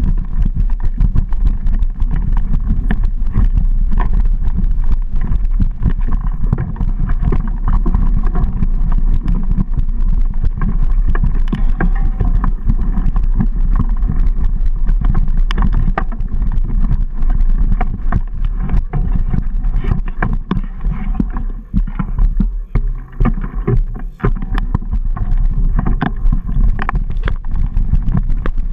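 Mountain bike riding over a rough dirt trail: tyres rolling and the bike rattling, with dense clicks and knocks over a steady low rumble that eases briefly about three-quarters of the way through.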